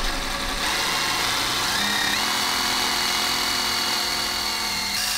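Cordless rotary tool spinning at high speed, its bit boring into plastic grille trim, giving a steady high whine. The pitch steps up about two seconds in as the tool speeds up.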